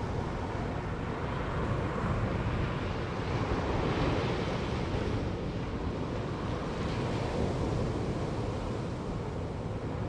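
Ocean surf breaking and washing up a sandy beach around rocks, the rush swelling louder with each wave every couple of seconds, over a low rumble of wind on the microphone.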